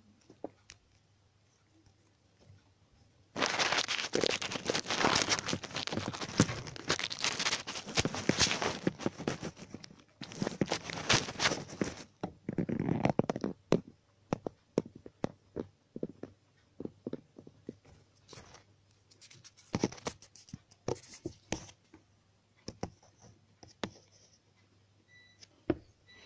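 Loud crinkling and rustling close to the microphone, starting a few seconds in and lasting about eight seconds. Scattered light clicks and taps follow.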